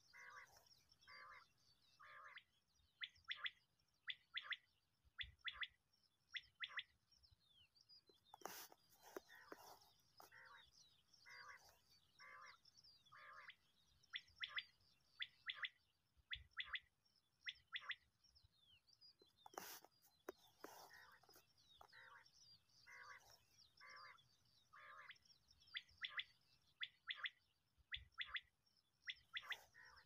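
Common quail calling: faint, short calls repeated in steady series, broken by bursts of sharper, higher notes in quick threes and fours.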